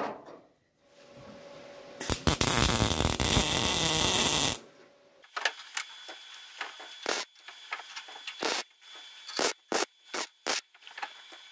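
MIG welder arcing for about two and a half seconds, tacking a repair section onto a car's drip rail through a punched plug-weld hole. After it comes a string of short clicks and taps.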